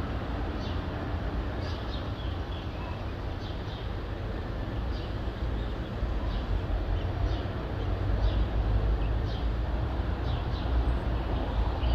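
Dawn town ambience: a steady low rumble of distant traffic, with birds chirping over it in short high chirps about every half second to a second.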